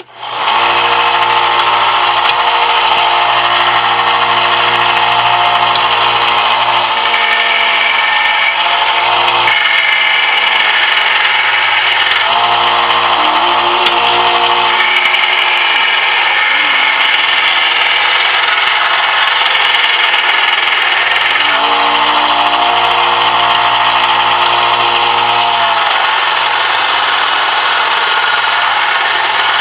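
Electric power sander starting up and running steadily while a brass piece is shaped on it. The tone shifts every few seconds as the metal is pressed on and eased off.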